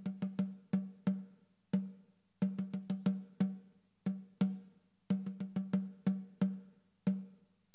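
Background music: a solo drum plays a repeating rhythm of quick strokes in short groups. Each stroke rings briefly on the same low note.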